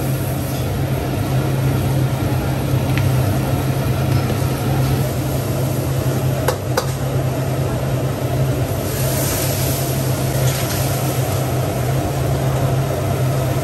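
Steady loud roar of commercial gas wok burners and kitchen extraction, with a metal ladle clinking twice on a steel wok about halfway through and a rush of sizzling a little later as ingredients hit the hot wok.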